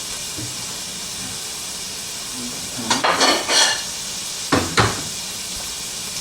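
Carrots and scallion whites frying in hot oil in a pan, giving a steady sizzle. There are clatters of dishes or utensils about three seconds in and again near five seconds.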